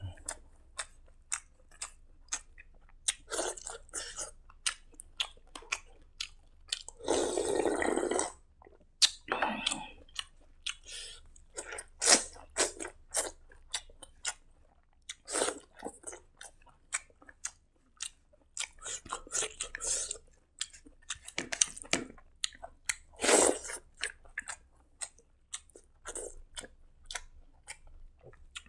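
Close-up eating sounds of a person chewing a mouthful of rice and side dishes: many wet, smacking mouth clicks and small crunches in irregular runs. About seven seconds in there is a longer noisy sound lasting about a second.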